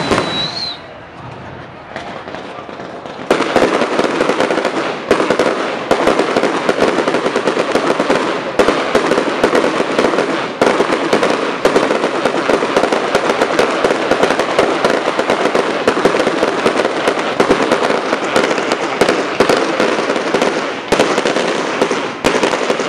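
Aerial firework shells bursting. A few separate bangs come first, then from about three seconds in a dense, continuous barrage of rapid crackling and bangs, which falls away near the end.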